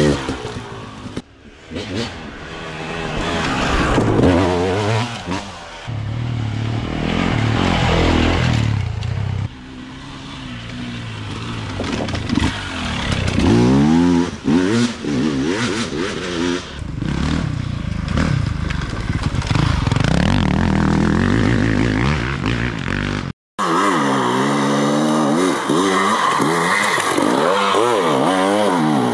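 Dirt bike engines revving hard and easing off again and again, the pitch climbing and falling as the bikes race over rough ground. The sound cuts out abruptly about 23 seconds in and comes back as a steadier engine note.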